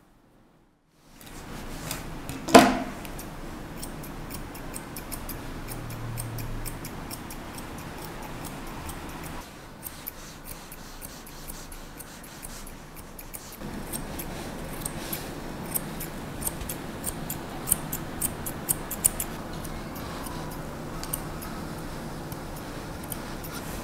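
Steel grooming scissors snipping a Yorkshire terrier's long coat: a series of short, sharp snips in quick runs, thickest in the second half. About two and a half seconds in there is a single louder sharp knock.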